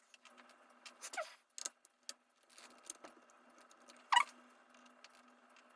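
Light clicks and taps of small parts being handled, with two short high squeaks falling in pitch, one about a second in and a louder one about four seconds in.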